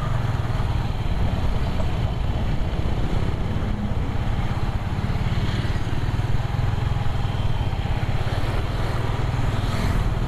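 Motorcycle under way at a steady speed: the engine runs evenly under a constant rush of wind and road noise.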